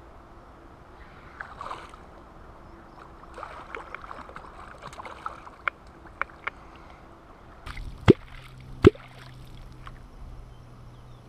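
A hooked wels catfish splashing and sloshing at the surface beside a float tube, with a few sharp clicks. Past the middle a steady low hum begins, with two loud knocks about a second apart.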